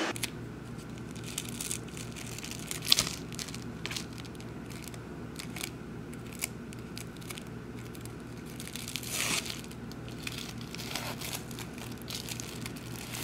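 Plastic film wrapper of a convenience-store triangle kimbap crinkling and tearing as it is unwrapped: irregular crackles, a sharp snap about three seconds in and a longer rustle near nine seconds, over a steady low hum.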